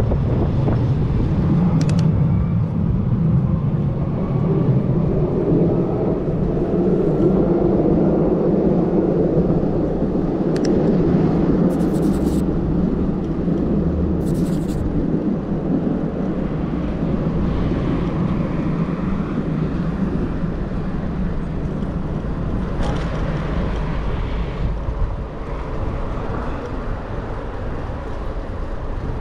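Steady city road traffic noise mixed with wind on the microphone from a moving bicycle, with a few short sharp clicks along the way.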